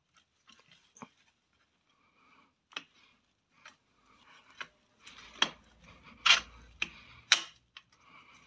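Scattered light clicks, knocks and rubbing of metal parts being handled as the Suzuki RG250 Gamma's swing arm is shifted to line its pivot up with the frame, with a few sharper knocks in the second half.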